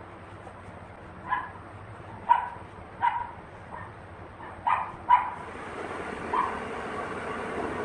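A dog barking in short, sharp barks, about seven of them at uneven intervals, over a steady background hiss.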